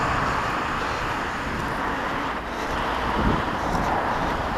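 Road traffic noise: a steady hiss of passing vehicles that slowly fades.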